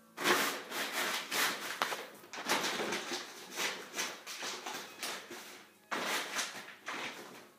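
Empty dog food bag rustling and crinkling in repeated bursts as a puppy plays with it, with a short lull shortly after the middle.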